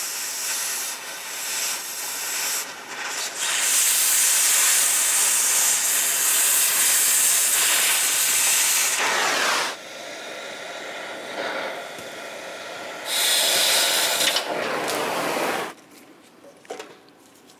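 Oxy-fuel cutting torch hissing as it burns the heads off completely rotted exhaust flange spring bolts. The hiss is loudest for about six seconds in the first half and again for a few seconds later on, quieter between, and dies down near the end.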